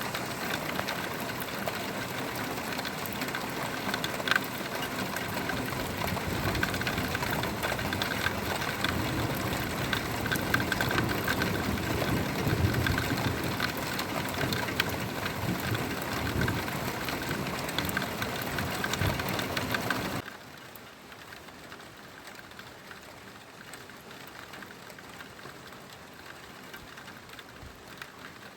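Heavy rain falling, a dense patter of drops. About twenty seconds in, it cuts abruptly to a quieter stretch of rain.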